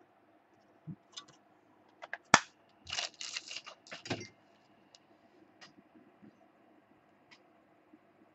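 Sports trading cards being handled on a table: a few light clicks and taps, one sharp click about two and a half seconds in, then about a second of rustling and sliding, with faint ticks after.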